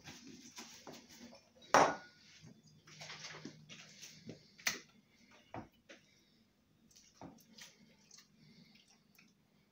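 Clinks and knocks of kitchen containers and a glass blender jug being handled, with the loudest sharp knock about two seconds in and another near the middle.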